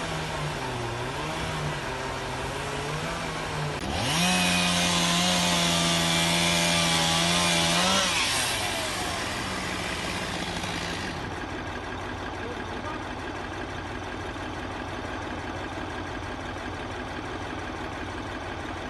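Portable band sawmill running. About four seconds in, its engine revs up sharply with a loud high hiss, holds for about four seconds, then drops back to a steady, quieter run.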